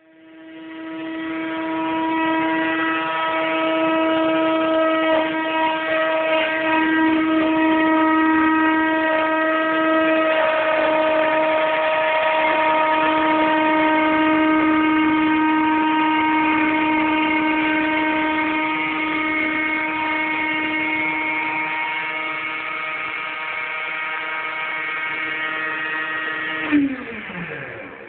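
Ryobi trim router running with a steady whine as it routes a groove in a foam surfboard blank for inlaid false stringers. Near the end there is a sharp click as it is switched off, and the pitch falls as the motor spins down.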